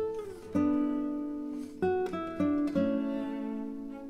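Background music: an acoustic guitar plucking notes and chords, each one sounding sharply and fading, several in quick succession around the middle.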